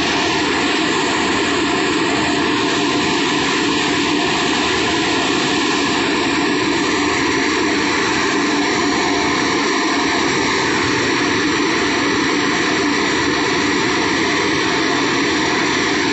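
Heavy construction machinery running with a loud, steady drone that does not change, a constant low hum under an even rushing noise.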